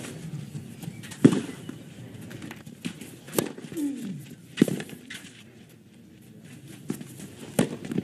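Tennis ball struck by rackets in a rally on a clay court: several sharp hits a second or more apart, the loudest about a second in.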